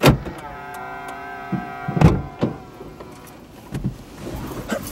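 Handling noises inside a car cabin: a loud thump at the start, a steady electric whine for about a second and a half, then several knocks and thuds, the loudest about two seconds in.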